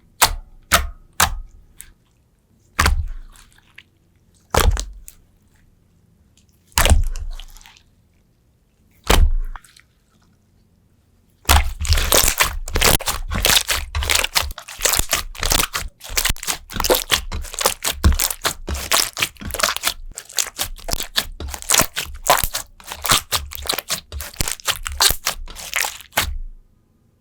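Slime being pressed and worked by hand, giving sharp cracks and pops: single cracks a couple of seconds apart at first, then from about halfway a dense, fast crackling that runs on until just before the end.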